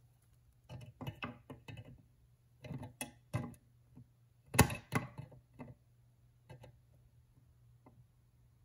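Small metallic clicks and taps of a hand tool fitting and tightening a nut onto a stud on the metal instrument-cluster housing, in irregular clusters with the loudest knock about halfway through, then dying away.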